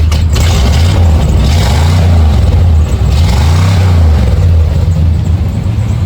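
1976 Chevy C20 pickup's V8 engine running just after its first start on a fresh set of spark plugs, revved up and let back down twice.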